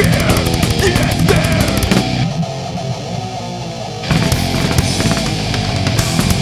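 Thrash metal song with distorted guitars, bass and drums. About two seconds in, the drums and cymbals drop out for about two seconds, leaving the guitars and bass alone. Then the full band crashes back in.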